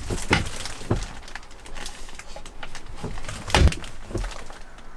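Overhead cabinet flap in a motorhome bedroom being handled and lifted open: a few sharp knocks and clicks from the flap and its catch, the loudest about three and a half seconds in, with faint scattered ticking and rustling between them.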